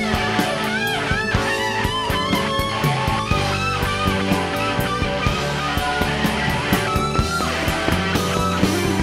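Instrumental rock band playing live: an electric lead guitar line with bends and vibrato over drums, bass and keyboards.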